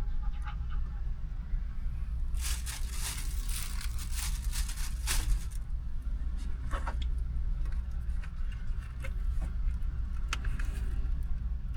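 Packaging rustling and crinkling in a car's cabin, in bursts of crackling over a steady low hum, busiest for a few seconds after the start and again briefly near the end.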